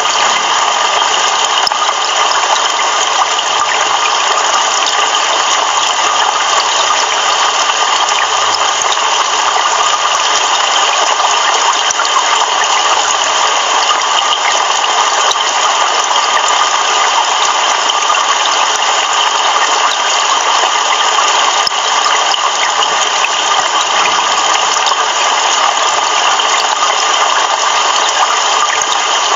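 Heavy rain pouring steadily, a dense even hiss of many drops with no thunder.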